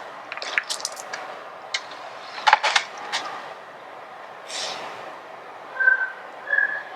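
Wood campfire crackling, with irregular sharp pops and snaps. Two brief high chirps come near the end.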